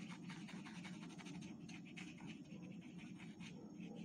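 Felt-tip sketch pen scribbling on a wooden ice-cream stick: quick, faint scratchy strokes over a steady low background hum.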